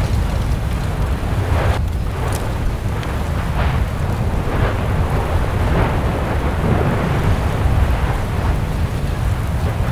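Erupting volcanic crater: a steady deep rumble with irregular crackling and splashing bursts as lava churns and spatters in the vent.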